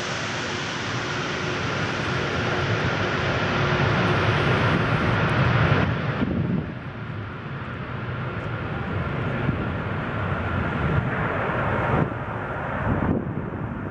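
Four Progress D-18T turbofans of an Antonov An-124-100 Ruslan landing: a loud jet rumble with a steady high fan whine. It swells over the first six seconds, drops suddenly, then carries on lower as the aircraft touches down and rolls out on the runway.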